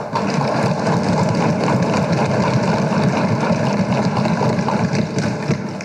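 Many legislators thumping their wooden desks in approval: a loud, sustained run of quick overlapping knocks that fades out near the end.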